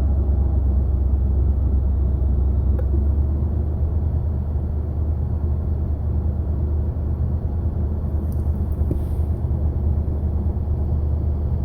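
Vehicle engine running steadily with a deep, even sound and no revving.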